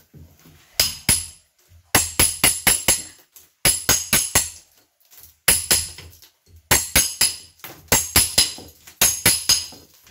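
Hammer striking a steel chisel to chip plaster and mortar away from around a window frame in a masonry wall. The blows come in quick bursts of several ringing metal-on-metal strikes a second, with short pauses between bursts.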